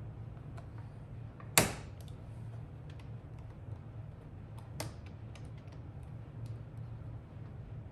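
Plastic clips of an HP 14 laptop's bottom case snapping loose as the panel is pried off: one sharp snap about one and a half seconds in, a smaller one near five seconds, and faint light plastic clicks between, over a low steady hum.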